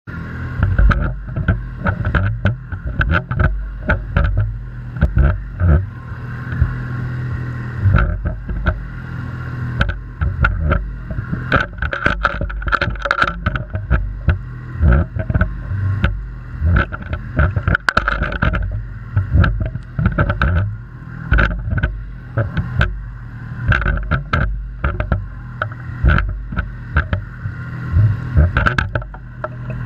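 Underwater sound picked up by a GoPro in its housing: a steady low hum with a higher whine from a boat motor carried through the water, broken by frequent irregular knocks and thumps of water buffeting the camera.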